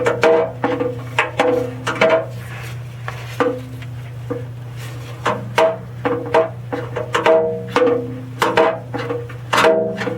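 Repeated metal clinks and taps, irregularly spaced, each ringing briefly, as tools and the dipstick tube adapter parts are worked by hand. A steady low hum runs underneath.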